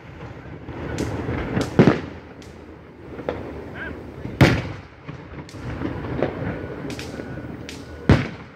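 Aerial fireworks shells bursting in the sky: three loud booms, a quick double about two seconds in, one midway and one near the end, with fainter pops between them.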